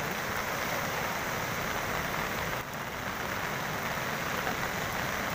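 Floodwater rushing over and across a submerged bridge: a steady, even rushing noise.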